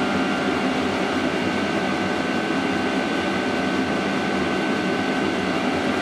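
Diesel air heater running at about half power, together with a small 12 V radial blower fan pushing air around its exhaust: a steady fan whir with a thin, constant high whine.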